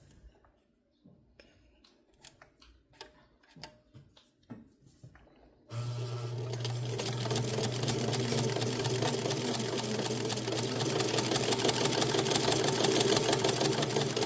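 A few light clicks, then about six seconds in the Hamilton sewing machine starts up and runs steadily, a motor hum under fast, even needle ticking, until it stops near the end.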